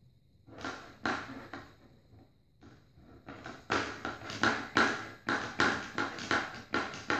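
A pug puppy's chew toy knocking and slapping against a hardwood floor as the puppy shakes and pushes it. A few scattered knocks early on become a quick, rhythmic run of knocks, about three a second, from about three seconds in.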